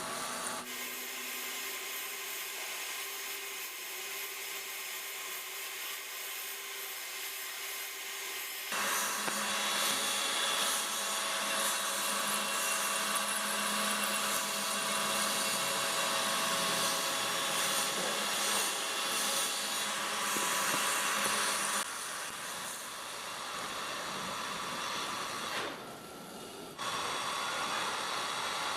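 A power tool working metal, a steady grinding or cutting noise with a high whine in it. It changes abruptly about 9 seconds in and again about 22 seconds in, and dips briefly near the end.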